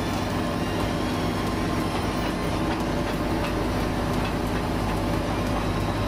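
SD 135C tracked asphalt paver's diesel engine running steadily at working speed, a low even hum, with faint scattered clicks as it takes in asphalt from a tipping dump truck.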